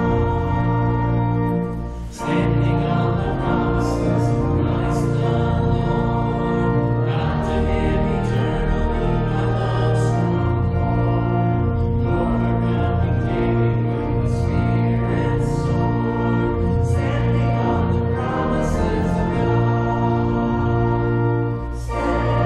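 Congregation singing a hymn to organ accompaniment: sustained chords with brief breaks between phrases about two seconds in and again near the end.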